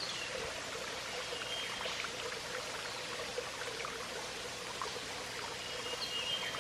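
Waterfall: water falling off rocks in a steady, even rush.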